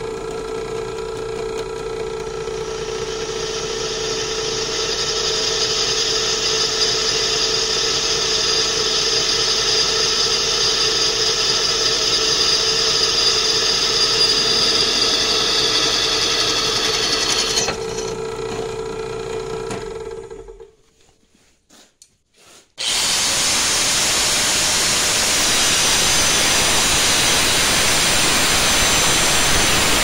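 Benchtop drill press running, its step bit cutting holes in a steel plate with a steady motor hum and a high cutting whine. About 18 seconds in the cutting stops, and the motor runs on briefly before it stops. After a short pause an angle grinder with a cutoff wheel starts and cuts into the plate, louder, with a steady grinding noise.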